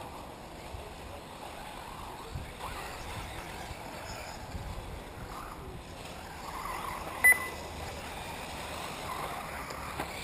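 1/8-scale electric RC buggies racing on a dirt track, a faint whirring that swells and fades under a steady rushing noise. One short, high electronic beep about seven seconds in is the loudest sound.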